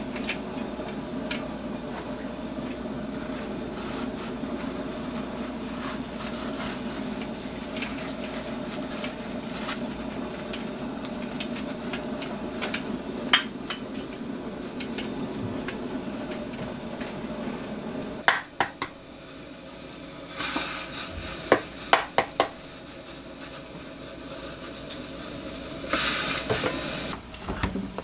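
Hands handling a block of tofu on a stainless steel tray with a wire rack and wrapping it in paper towel: light clicks and rustles over a steady low hum, with one sharper click about halfway through. After a cut about two-thirds of the way in, the hum drops away, leaving sharper clicks and knocks and two brief rustling bursts of food-prep handling.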